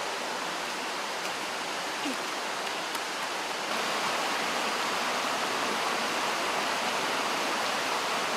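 Steady rushing of a small stream running over rocks, a little louder from about four seconds in.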